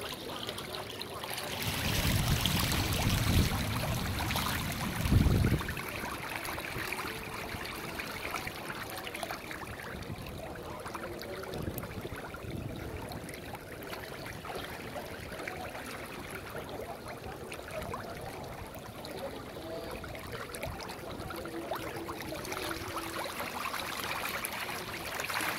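Water splashing and trickling as a dense school of fish churns and thrashes at the surface, a steady watery wash. A low rumble comes in the first few seconds, loudest about five seconds in.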